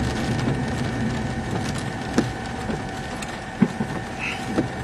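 Inside a moving car: steady engine and road noise, with three short sharp knocks in the second half.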